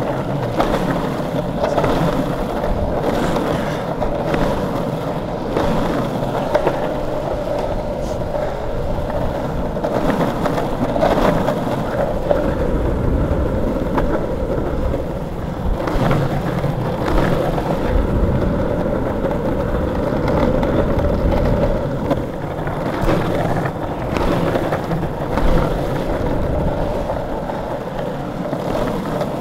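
Longboard wheels rolling over asphalt: a steady rumble with a faint hum, broken now and then by short clicks and knocks.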